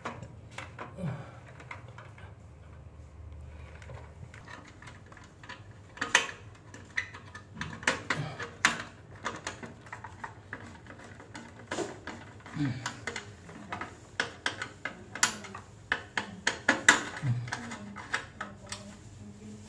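Irregular sharp clicks and light knocks of hand work on a consumer unit, plastic and metal parts and wires being handled. A few clicks in the first six seconds, then frequent ones.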